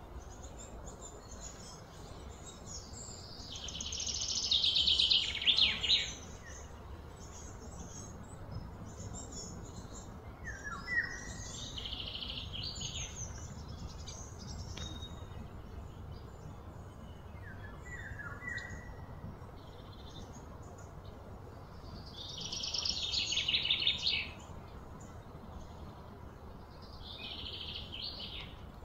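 Birds calling outdoors: a loud, fast trill that builds for a few seconds, twice, with a few short falling whistle notes between, over a steady low background rumble.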